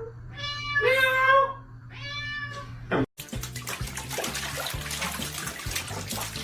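A domestic cat meowing in two drawn-out, wavering calls. After a sudden cut about three seconds in comes a steady rush of running water.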